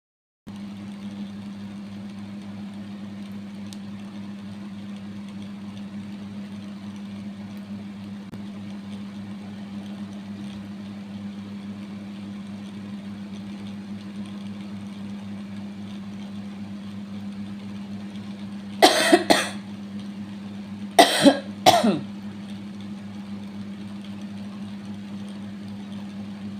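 A steady low hum, with a person coughing three or four times about two-thirds of the way through; the coughs are the loudest sounds.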